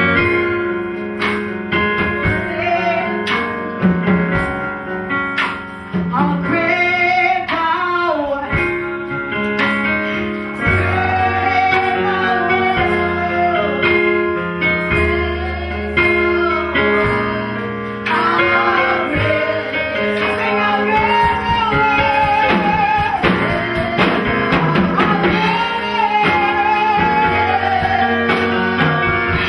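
A woman singing a gospel worship song through a microphone, over a live band accompaniment with a steady beat.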